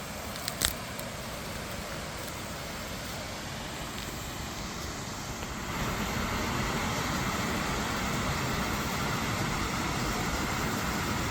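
Lake water rushing and draining down into a sinkhole, a steady rushing noise that grows louder about six seconds in. A brief sharp click comes just under a second in.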